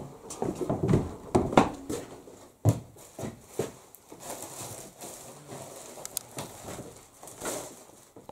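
Footsteps, a quick run of knocks and thumps over the first few seconds, then the rustle of plastic and cloth bags being handled and taken down from hooks near the end.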